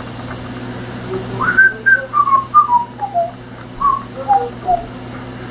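A person whistling a short tune of about a dozen notes that step downward in pitch, starting about a second and a half in.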